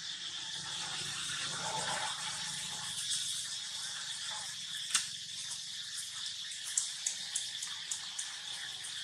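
Steady outdoor insect chirring with a constant high drone, broken by one sharp click about five seconds in and a scatter of small high ticks near the end.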